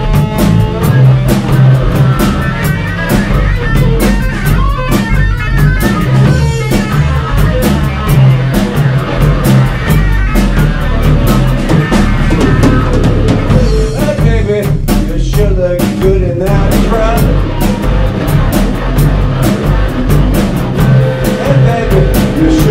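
Live blues-rock boogie on electric guitar, bass guitar and drums, with no singing: the electric guitar plays a solo of bent, wavering lead lines over a steady bass and drum groove with busy cymbals.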